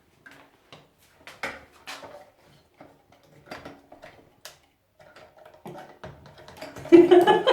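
Small plastic parts of a toilet flush valve clicking and knocking now and then as they are handled and fitted during a valve-seal replacement. A louder, voice-like sound follows near the end.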